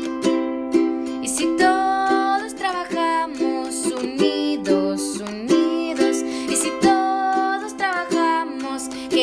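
A children's worship song: a strummed string instrument keeps a steady beat of about two strokes a second, and a sung melody comes in about a second and a half in.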